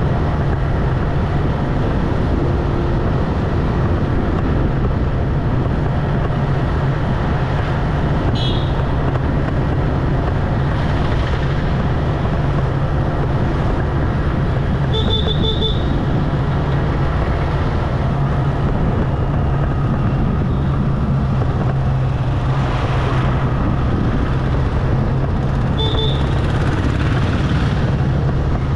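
Motorbike engine running steadily at cruising speed, with road and wind noise. Short high-pitched beeps sound three times: about a third of the way in, midway, and near the end.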